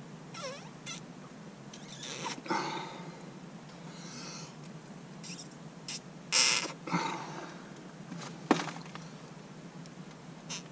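Several hard puffs of breath blown into the Evinrude G2 gear case's oil tube, the loudest about six seconds in, with a sharp click a couple of seconds later. The air pressurises the sealed lower unit to push the old gear oil out of the drain faster.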